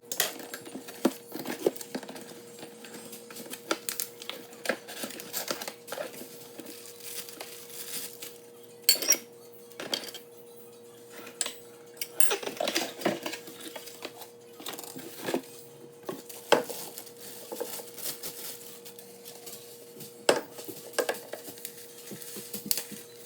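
Metal parts of a Presto percolator clinking and knocking as they are handled and unpacked: a string of irregular sharp clicks and clanks, with a faint steady hum underneath.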